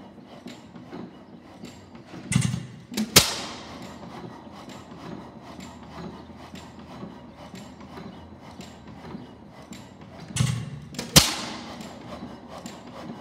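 Freshly restored 6 HP tank-cooled Faribault stationary gas engine running hit-and-miss: its flywheels coast with a steady light clicking, and twice, about eight seconds apart, it takes a low puff followed under a second later by a sharp firing bang.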